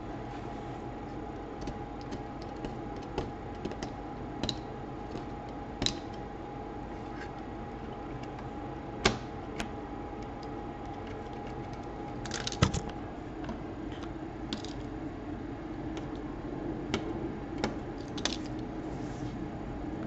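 Scattered light clicks and taps of a laptop motherboard and its plastic casing parts being handled and pressed to make them fit, with a sharper knock about nine seconds in and a quick cluster of clicks about twelve and a half seconds in. A faint steady hum runs underneath until about thirteen seconds in.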